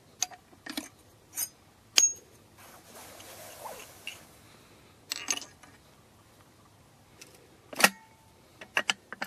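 Recoilless rifle's breech being opened and closed by hand: a series of sharp metallic clicks and clanks, the loudest about two seconds in and again near the end, with a quick run of smaller clicks after it.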